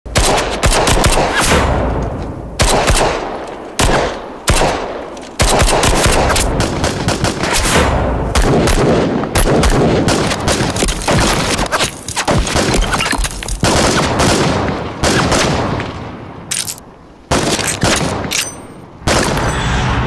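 Heavy automatic gunfire: rapid bursts of rifle shots, nearly continuous, with a couple of short lulls near the end.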